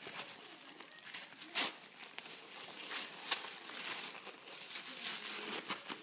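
Tissue paper and gift wrapping crumpling and rustling as a child's hands pull a present out of a gift bag, with a few sharper crinkles about a second and a half in, midway, and near the end.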